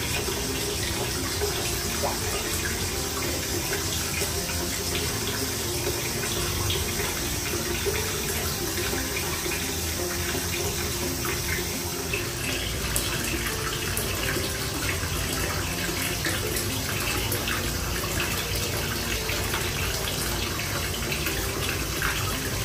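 Hot-spring water running steadily from a spout into a bath, a continuous splashing flow.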